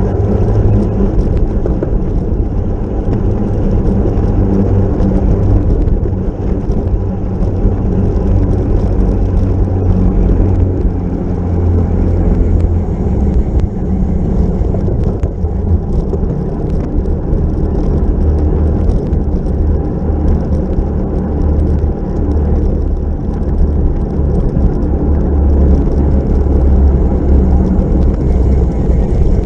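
Wind rushing over the microphone of a racing bicycle's camera at speed: a loud, steady low rumble mixed with road noise.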